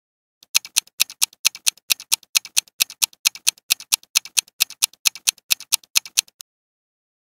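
Clock-ticking countdown timer sound effect: rapid, even ticks, about four a second, counting down the answer time. It starts about half a second in and cuts off abruptly some six seconds later.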